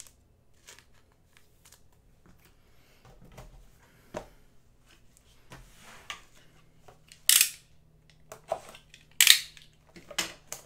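Panini Prizm blaster box being handled, with light taps and rustles, then two short loud rips about two seconds apart, and smaller ones, as the box is torn open.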